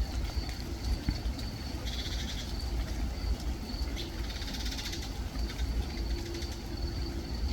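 Garden birds calling: a thin high note repeating again and again, with two short bursts of rapid high chattering about two seconds in and again near the middle, over a steady low rumble.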